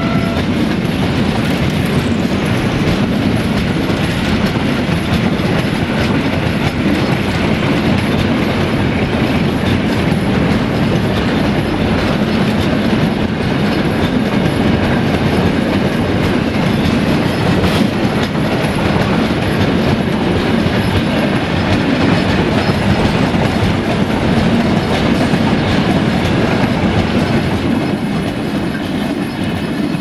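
Freight train's high-sided open wagons rolling past close by: a steady rumble and rattle of steel wheels on the rails, with clickety-clack over the rail joints.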